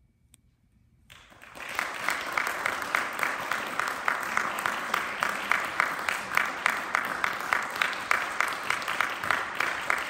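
Audience applause breaking out about a second in after near silence, then holding steady, with one set of loud claps close by at about three a second.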